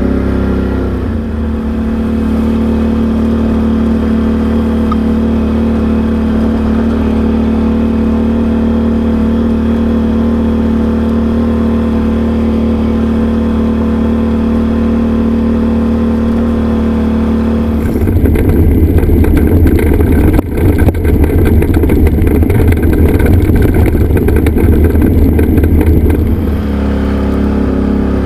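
Can-Am Outlander XMR 850 ATV's V-twin engine running steadily while riding along a rough track. For about eight seconds past the middle the sound turns louder and rougher, then it settles back to a steady run.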